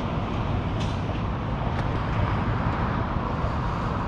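Steady street ambience of road traffic, a low continuous rumble of passing vehicles, with a few faint ticks about once a second.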